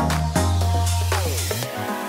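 Electronic background music with a beat. A long held bass note about half a second in ends with a falling sweep around a second and a half in.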